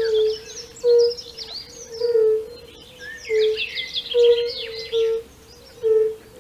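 Several European fire-bellied toads calling in chorus: short, low, pure notes repeated about once a second, at slightly different pitches from more than one toad. Songbirds twitter above them.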